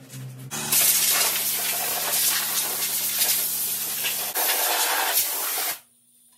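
Compressed air hissing loudly and steadily from an air blow gun as it blasts grass clippings off a mower deck, starting about half a second in and cutting off abruptly near the end. A steady low hum runs underneath until about four seconds in.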